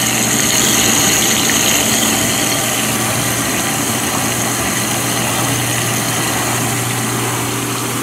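GE Potscrubber 970 dishwasher running with its motor humming steadily while it takes in cold water for a rinse, a high hiss of water through the fill valve strongest in the first few seconds.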